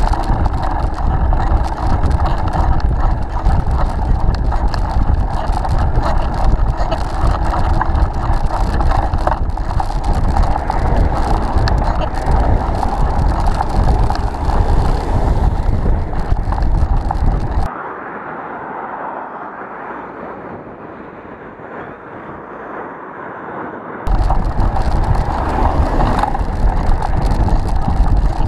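Wind buffeting the microphone of a bike-mounted camera, with steady road and tyre noise from riding. A little past halfway the sound turns suddenly quieter and muffled for about six seconds, then the full rumble returns just as suddenly.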